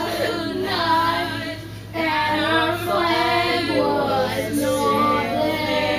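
Several voices singing together in held, sliding notes, with a short break about two seconds in.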